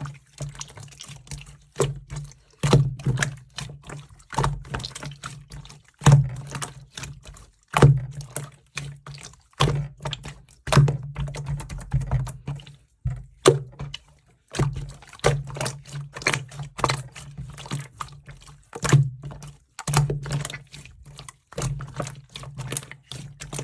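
Slime being squeezed and pressed by hand, giving an irregular run of sticky clicks and pops.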